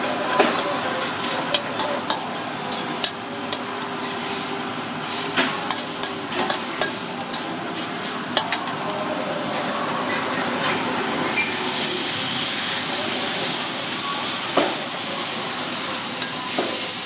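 Metal spatula scraping and clacking against a wok as minced meat and chopped long beans sizzle in oil, stirred repeatedly. About eleven seconds in, the sizzle turns to a louder, steadier hiss with steam as liquid goes into the hot wok.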